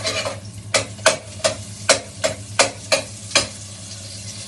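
A cooking utensil scraping and knocking against a frying pan in quick strokes, about three a second, stopping about three and a half seconds in. Under it runs the hiss of butter melting and sizzling in the hot pan.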